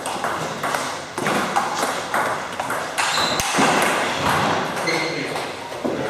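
Table tennis ball being struck by rackets and bouncing on the table in a rally: an irregular series of sharp ticks.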